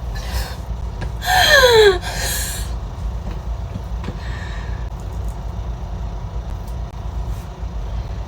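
A woman's short wordless vocal sound sliding steeply down in pitch, followed at once by a breathy exhale, over a steady low hum.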